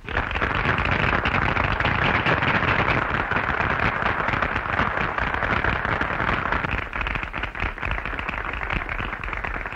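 Audience applauding: a dense patter of many hands clapping that eases off a little about seven seconds in.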